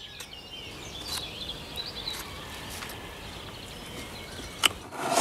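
Birds chirping and singing over a steady outdoor hiss, with a few sharp clicks, the loudest one near the end.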